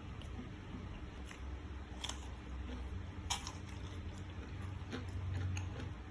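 Close-miked eating sounds of a person chewing and biting food, with scattered sharp mouth clicks, the loudest about three seconds in.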